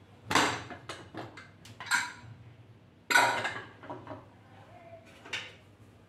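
Aluminium pressure cooker lid being unlocked, lifted off and set aside, with several metal clanks and clatters, the loudest about three seconds in. Near the end a long spoon knocks in the pot of cooked toor dal.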